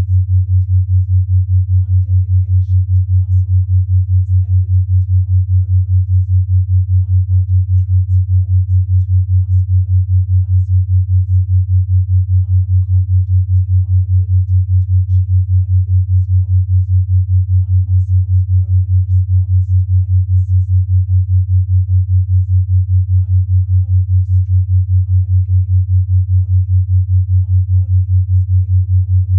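Steady low sine tone near 100 Hz, beating in loudness about five times a second: a 5 Hz binaural beat.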